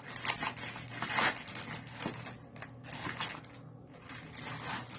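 Packaging crinkling and rustling in irregular bursts as a subscription mailer is handled and opened, busiest in the first second or so.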